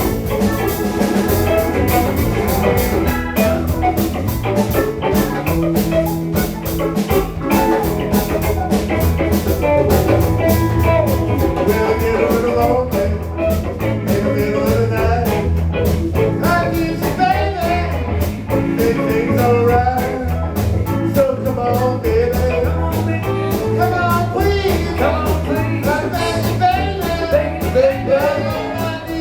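Live band playing a bluesy rock tune at a steady beat: drum kit, bass and electric guitar, with a wavering lead line over the top.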